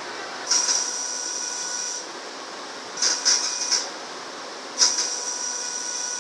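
Electric motors of an exoskeleton's shoulder joints whirring in three bursts as the arms are driven up and down, each burst a high mechanical whine with a fainter lower tone, starting sharply.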